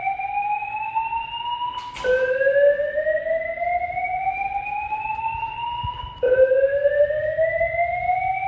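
Fire alarm voice evacuation system sounding a slow-whoop tone between its spoken messages. Each whoop rises steadily in pitch for about four seconds, then drops back and starts again, restarting about two seconds in and again about six seconds in, with a click at the first restart.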